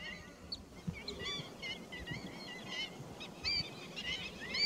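Many birds calling at once: a continuous chatter of short, high, overlapping chirps.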